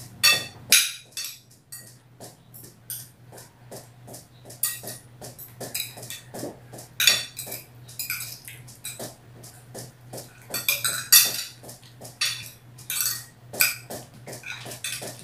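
Metal forks and spoons clinking and scraping against glass plates as two people eat: many quick, irregular clicks over a steady low hum.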